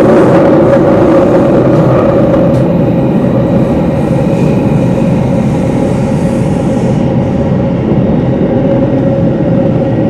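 Singapore MRT train running through a tunnel, heard from inside the carriage: a steady rumble with a constant hum.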